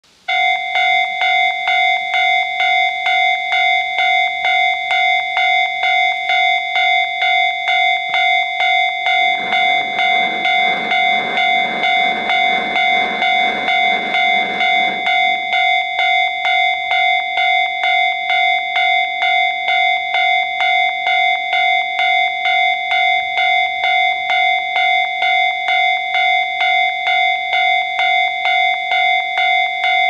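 Japanese railway level-crossing alarm ringing: an electronic bell striking steadily about twice a second, the warning that a train is approaching. A rougher rushing noise joins underneath from about nine to fifteen seconds in.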